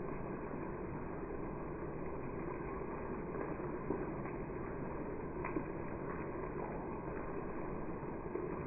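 Monsoon rain falling steadily, an even hiss with a couple of sharper ticks from single drops around the middle.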